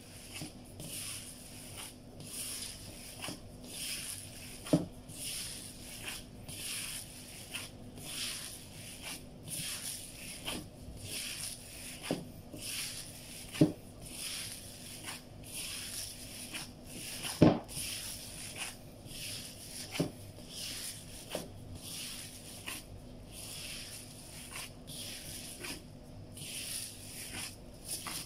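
Gloved hands kneading a raw ground-meat embutido mixture in a bowl: rhythmic wet squishing, about three strokes every two seconds. A few sharper knocks stand out, the loudest just past the middle, over a faint steady hum.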